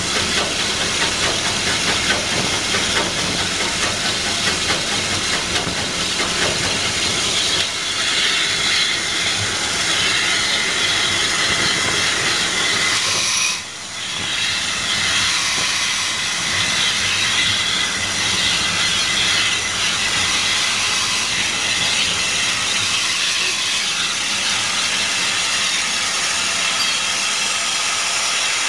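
Steam locomotive heard from the footplate while running: a loud, steady hiss of steam with the noise of the engine under way. The sound breaks off briefly about halfway through and then carries on much the same.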